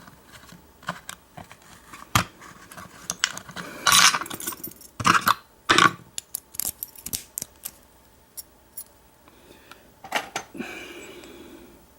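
Small metal lock parts clicking and scraping under hand tools as an American 1305 padlock's cylinder is taken apart, its retaining clip being worked off; irregular sharp clicks with a few louder scrapes, and a softer rustle near the end.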